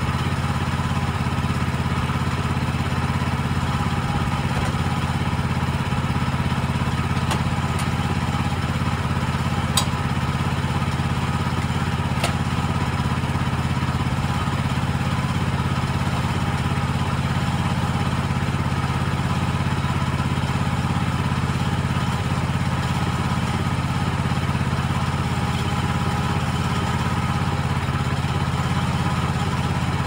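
Small gasoline engine on a Woodland Mills HM130MAX bandsaw mill running steadily without load, with a few light clicks around ten to twelve seconds in.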